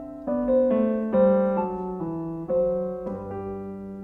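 Background piano music: a slow, gentle melody of single notes that start sharply and fade, a new note about every half second.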